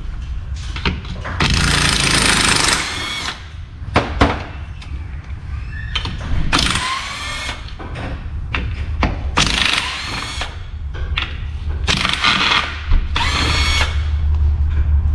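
Cordless power tool with a socket extension spinning the case bolts out of a 241 DLD transfer case, in about five short runs of a second or so each, with sharp metal clicks between runs as the socket goes onto the next bolt.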